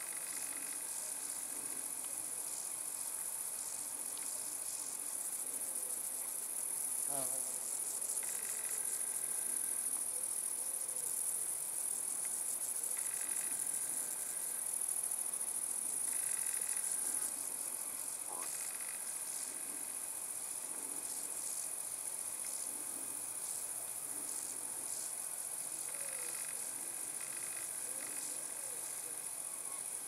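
Insects chirring steadily at a high pitch. Now and then a few faint, short sounds in a lower pitch join in.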